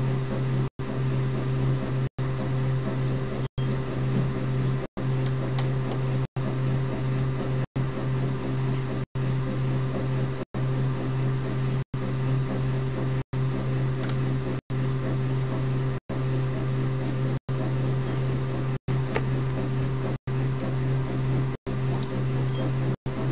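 A steady low hum with a few fainter higher tones, cut by brief silent dropouts about every second and a half.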